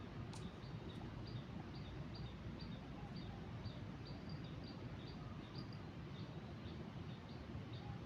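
Outdoor ambience: short high chirps from a small animal, bird or insect, repeating evenly about twice a second over a steady low rushing noise.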